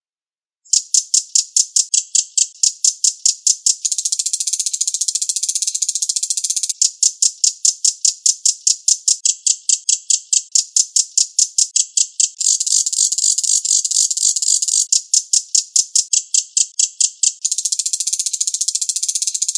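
Reno bird song from a training recording: fast, high-pitched chip notes repeated about four to five times a second, starting just under a second in, with three stretches where the notes run together into a dense, rattling trill.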